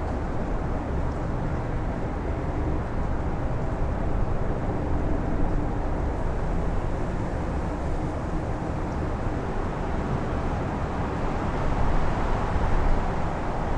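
Strong wind blowing in gusts, a rushing noise with a deep low rumble that swells and eases, surging loudest near the end.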